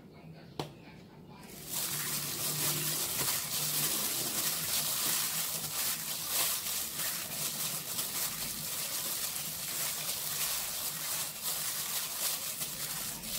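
A hand in a disposable plastic glove mixes and squeezes raw minced pork and sliced pork skin in an aluminium pot: dense crinkling of the plastic glove and wet squelching of the meat. It starts about two seconds in, after a single sharp click.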